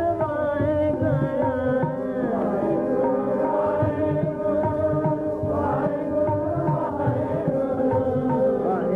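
Sikh devotional kirtan: a voice singing in gliding lines over steady held harmonium tones, with tabla strokes beneath.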